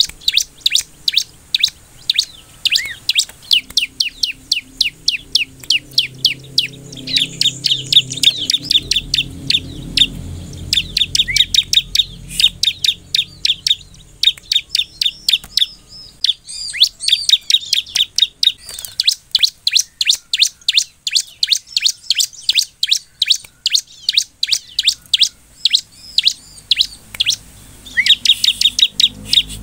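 Bar-winged prinia (ciblek) singing hard: rapid, sharp, evenly repeated chip notes, about four a second, in long runs broken by a few short pauses.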